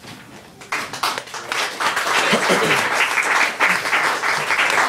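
Small audience applauding, the clapping starting about a second in and quickly building to a steady, dense patter.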